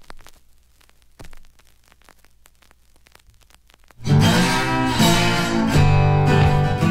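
Guitar music: faint and sparse at first, then strummed guitar with a steady low bass line comes in loudly about four seconds in.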